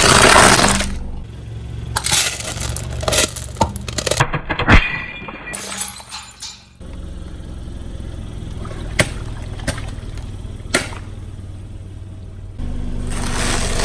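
Car tyre rolling over and crushing brittle objects: a run of sharp cracks and snaps with one loud crack about five seconds in, a few single snaps later, over the low steady running of the car's engine.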